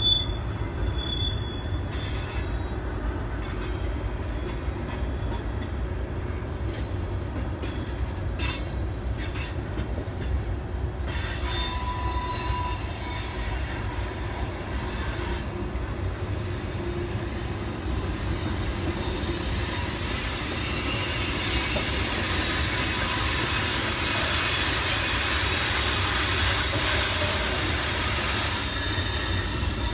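Norfolk Southern freight train rolling past with a steady low rumble of the cars and scattered clicks early on. High-pitched wheel squeal comes in about a third of the way through and grows louder in the second half.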